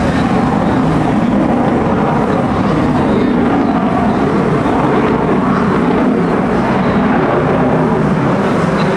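Jet aircraft flying high overhead: a steady, even engine noise without breaks.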